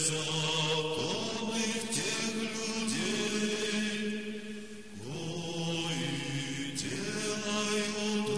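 Church choir chanting slowly in long held notes. The phrase fades about four seconds in, and a new phrase begins about five seconds in.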